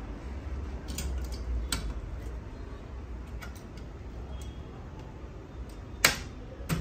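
Scattered light clicks and taps of a laser printer's sheet-metal chassis and circuit board being handled and fitted together, with the sharpest click about six seconds in. A low rumble underneath fades after the first couple of seconds.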